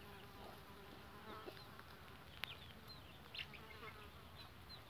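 Faint, scattered short high peeps from young chickens over a quiet background, with a single sharp click about halfway through.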